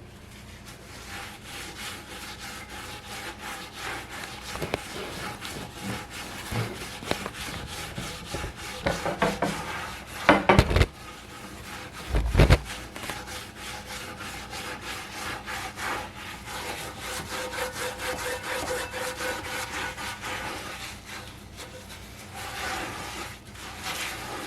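Steel-wool soap pad scrubbing a cast iron kettle in quick, repeated rubbing strokes, scouring off paint loosened by an electrolysis bath. Two heavy knocks come near the middle.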